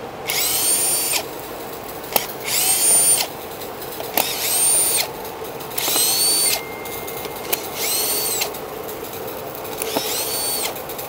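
A cordless drill-driver spinning up in short bursts, six times, each with a whine that rises quickly and then holds steady for under a second: screws being driven out of a small welding machine's casing.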